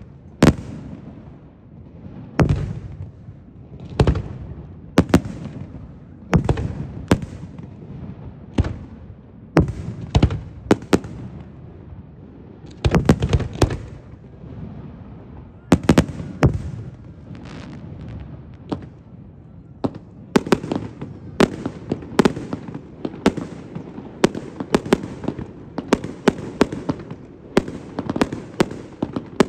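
Aerial firework shells bursting in sharp bangs, each trailing off in echo. The bangs come a second or more apart at first, then in a quick, dense volley from about twenty seconds in.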